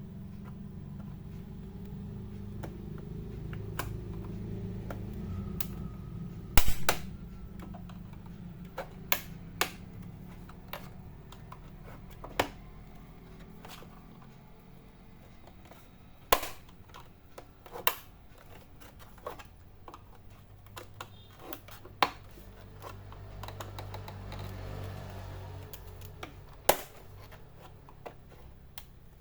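Plastic clips of an all-in-one PC's back cover snapping loose as the casing is pried open: sharp single clicks every few seconds over low handling noise.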